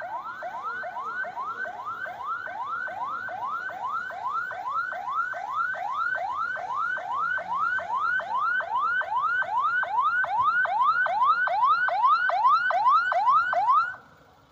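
Ambulance's electronic siren sounding in quick rising sweeps, a little over two a second, growing louder as it approaches, then cutting off abruptly near the end.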